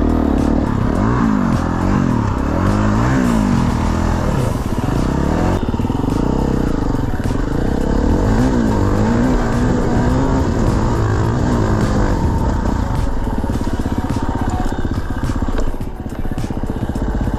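Dirt bike engine revving up and down over and over as the bike is ridden, the pitch rising and falling with each blip of the throttle.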